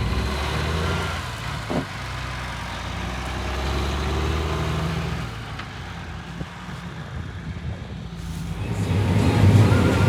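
Engine of a large farm machine, a tractor or combine, running steadily with a low hum. It gets quieter through the middle and grows louder again near the end.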